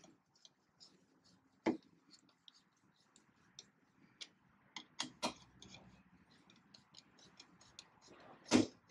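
Hand-turned T25 Torx screwdriver tightening screws into a trailer-connector mounting plate: scattered small clicks and ticks of metal on metal. A few louder knocks break in, the loudest near the end.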